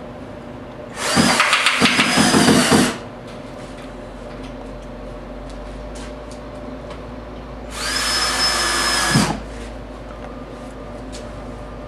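Cordless drill driving screws through a metal rake-edge trim into the roof deck: two runs of the motor's whine, about two seconds and a second and a half long, the first broken by rapid clicks.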